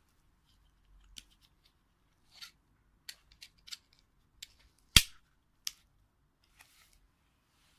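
Plastic side-release buckles being handled: a scatter of light clicks and taps, with one sharp, louder click about five seconds in and another just after.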